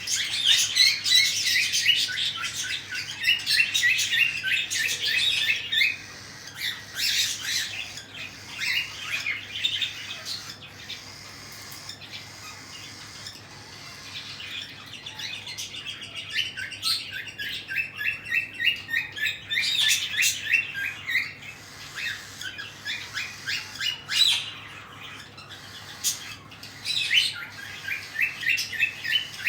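Cockatiel chicks giving rapid trains of short, high begging chirps while being fed by their parents. The chirps come in several bouts, with a quieter stretch in the middle.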